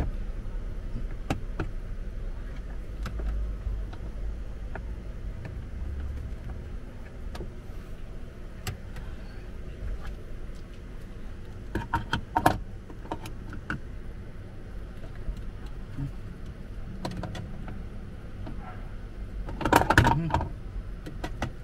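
Plastic interior trim around a Honda City GM6's gear shifter being pried and worked loose by hand: scattered small clicks and rattles, a quick cluster of sharper knocks about halfway through, and the loudest burst of snapping and rattling near the end.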